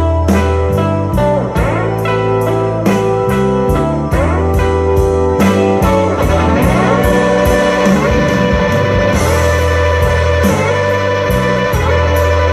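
Instrumental blues-rock passage: a lead guitar with bending, sliding notes over sustained bass notes and a steady drum beat.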